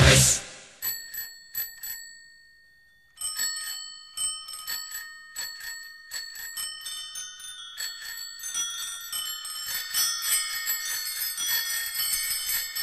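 Bicycle bells ringing in the bell interlude of a recorded rock song. Four single rings about half a second apart die away, and after a short pause many bells ring together in quick, overlapping rings that grow denser and louder.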